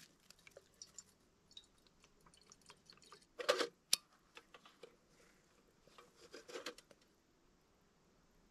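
Faint clicks and rustles of a red hurricane lantern being refilled with fuel and lit, the lantern having run empty overnight. A short scraping burst about three and a half seconds in is followed at once by a sharp click, and there is another brief rustle later on.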